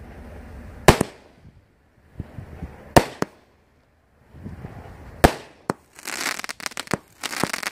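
Consumer 200-gram, 25-shot firework cake (Alien Fireworks' She's Packing Heat) firing. There are three loud shell breaks about two seconds apart, each after a short rushing hiss as the shell goes up. From about six seconds on comes a dense crackle of many small pops from crackling effects.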